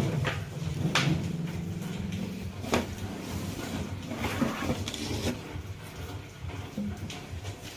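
Flat-pack cabinet parts and packaging being handled: a few sharp knocks and some rustling, over a low steady rumble.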